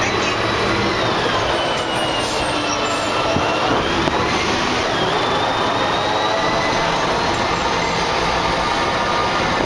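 City bus under way, heard from inside the passenger cabin: steady engine and road noise with a high whine that slowly rises and falls in pitch.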